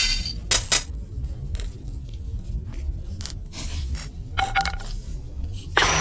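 Logo-intro sound effects over a low rumble: a string of sharp clicks and crackles, a brief ringing tone about four and a half seconds in, and a louder hit just before the end.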